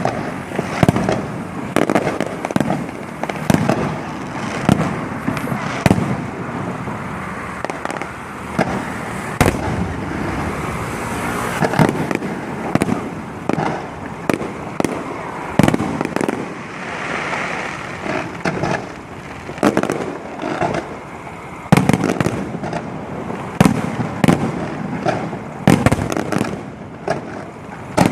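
Electrically fired fireworks going off: a dense, irregular run of loud bangs and crackles, one after another, over a steady rumbling haze.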